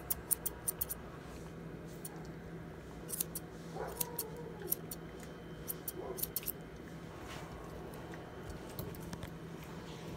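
Grooming shears snipping through a puppy's foot hair in quick runs of short, crisp cuts. The snips are densest at the start and again from about three to six and a half seconds in, then thin out.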